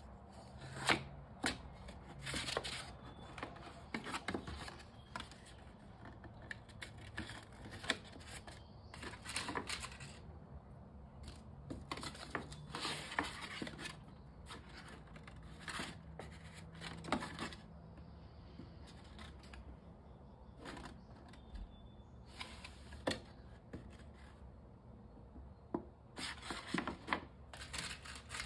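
Folded paper plates being handled and fitted together: irregular rustling and crinkling of the stiff paper, with short sharp clicks and taps.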